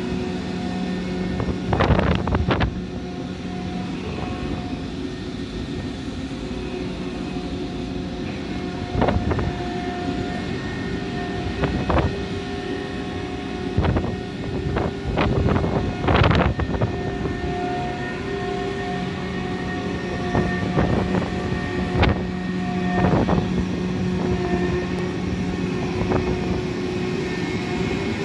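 Steady drone of running heavy machinery holding several steady hums, broken by irregular knocks and thumps every few seconds, loudest about two seconds in and about sixteen seconds in.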